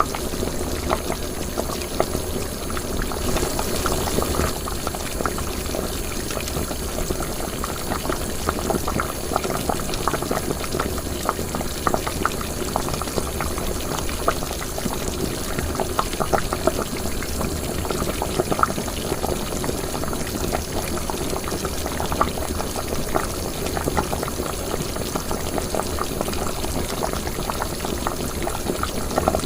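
Liquid boiling in a cooking pot: a continuous, steady run of small bubbles popping.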